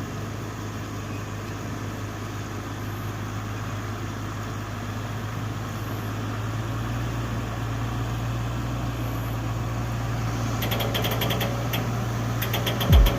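Heavy diesel machinery engine running steadily, its low hum slowly growing louder. A fast, high rattling of closely spaced ticks joins it in the last few seconds.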